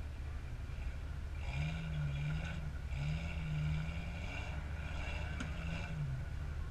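Lifted Jeep Cherokee XJ rock crawler's engine running under a steady low rumble and revved in several bursts of throttle, its pitch rising and falling as it works over the rocks.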